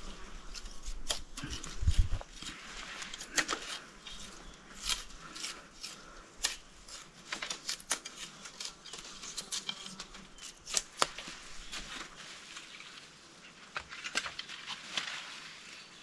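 Thin jungle bamboo canes and their leaves rustling, with scattered sharp snaps and cracks as the canes are cut and pulled loose. A dull thump sounds about two seconds in.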